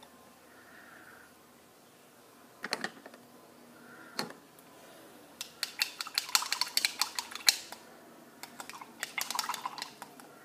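Face-paint kit being handled: light clicks and clatter of paint pots and brushes. A couple of single clicks come first, then two flurries of rapid clicking about halfway through and near the end.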